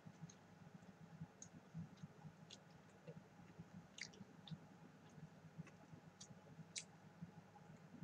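Faint chewing with small irregular clicks: a fried cicada nymph being chewed, otherwise near silence.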